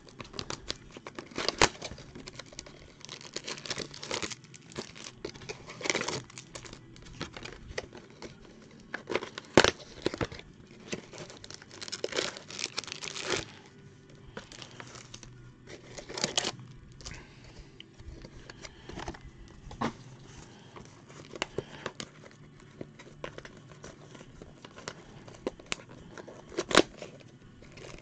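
Foil-wrapped trading-card packs crinkling and cardboard box flaps rustling as a Topps Finest box is opened and its packs pulled out by hand, in irregular bursts with two sharper snaps, about a third of the way in and near the end.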